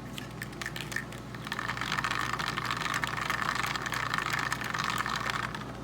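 Mini beauty blender washing machine spinning a makeup sponge in water: a small motor runs with rapid clicking and rattling, starting about a second and a half in and stopping near the end.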